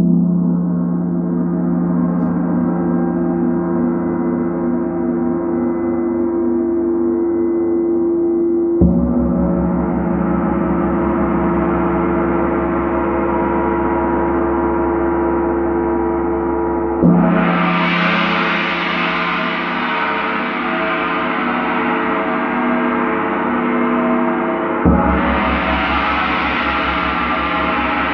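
Large Paiste gong struck with a soft mallet three times, about eight seconds apart, each stroke ringing on over the one before. The last two strokes are brighter, their ring spreading higher.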